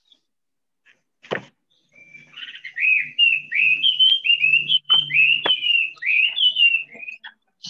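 A bird singing: a quick run of short whistled notes, each sliding downward, about three a second, starting about two seconds in. A single click about a second in.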